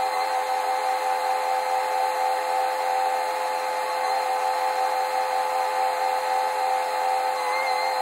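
Tractor engine running steadily under load, driving a grain cart's unloading auger as soybeans pour into a semi trailer, heard from inside the tractor cab.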